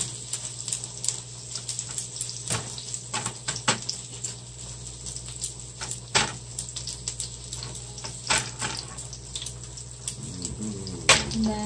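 Onion and garlic sizzling in oil in a nonstick frying pan, with scattered clicks and scrapes of a spatula stirring them. A steady low hum runs underneath.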